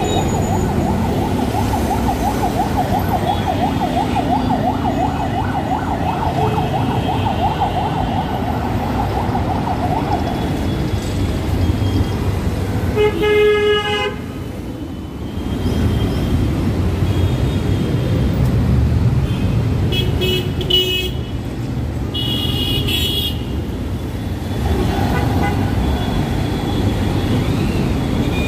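Busy road traffic passing, with buses and motorbikes running by. A siren wavers rapidly for about the first ten seconds. A vehicle horn blasts for about a second near the middle, and several short, higher-pitched horn toots follow a few seconds later.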